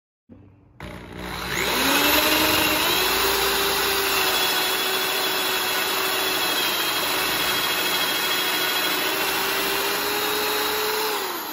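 Corded electric drill boring a shallow recess into a wooden board with a wide wood bit. The motor spins up over the first couple of seconds, runs steadily under load, then winds down near the end.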